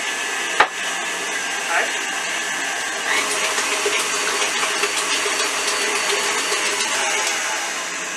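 KitchenAid stand mixer motor running steadily, its beater churning pie batter in the stainless steel bowl. There is a single sharp click about half a second in, and the mixer gets slightly louder about three seconds in.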